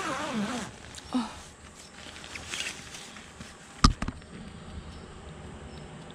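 Nylon tent fabric rustling and being handled as a small dog moves out through the open tent door. There is a short gliding voice-like sound at the very start, and a sharp knock about four seconds in, the loudest sound.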